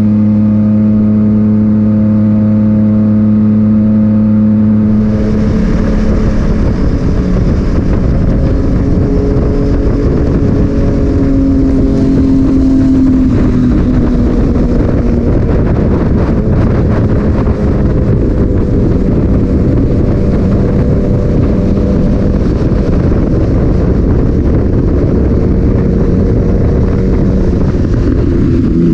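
Yamaha MT-09 inline-three engine through an Akrapovic titanium exhaust while riding. The note holds steady for about five seconds, then wind rush comes in as the engine pitch shifts and wavers with the throttle.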